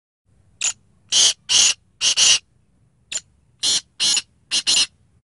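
Black francolin calling: two scratchy, high-pitched phrases about three seconds apart. Each phrase is a short note followed by three louder notes, the last one doubled.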